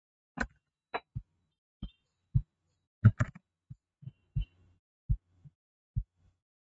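Computer keyboard keys and mouse buttons being pressed: about fifteen separate short taps and clicks at an uneven pace, each with a dull low thump.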